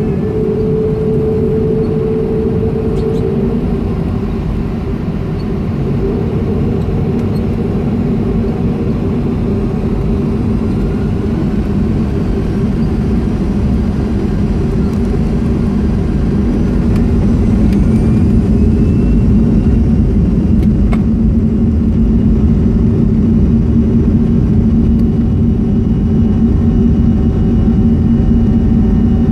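Boeing 737-300's CFM56 jet engines heard from inside the cabin during a rolling takeoff: a steady loud drone with a whine that rises in pitch from about a third of the way in. The noise grows louder a little past halfway as the engines spool up to takeoff thrust.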